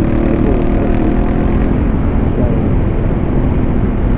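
Motorcycle with an aftermarket Fuel exhaust running steadily on the road, with heavy wind rush on the microphone.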